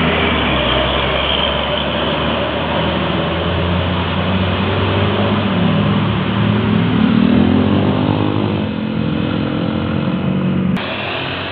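Diesel engine of a tour bus passing close by, its pitch rising and falling as it goes. The sound changes abruptly near the end.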